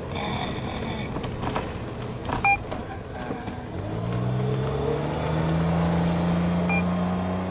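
Suzuki Jimny's engine running under way, its note rising from about four seconds in and then holding steady as the car picks up speed. A brief sharp sound stands out about two and a half seconds in.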